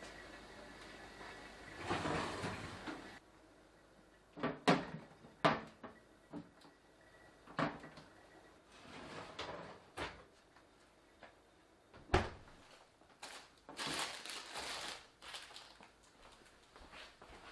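Kitchen storage containers and refrigerator compartments being handled: a string of sharp clicks and knocks, with stretches of rustling near the start and again about three quarters through.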